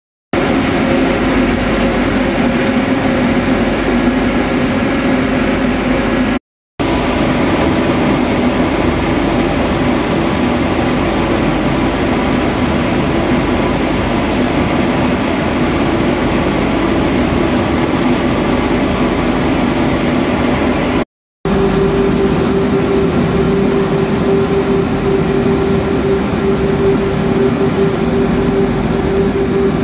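Roller-conveyor shot blasting machine running: a loud, steady mechanical drone with a hum. It cuts out briefly twice, and after the second break a higher steady hum stands out.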